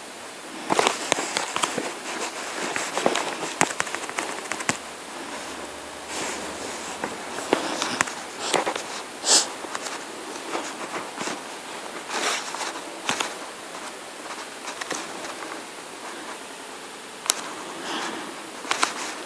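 Irregular sharp clicks and crackles, some single and some in quick clusters, over a steady hiss.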